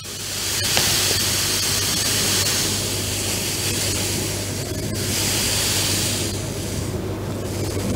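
Granulated sugar poured in a steady stream into a stainless-steel Thermomix mixing bowl onto raw eggs, a continuous hiss that swells and dips slightly as the pour varies.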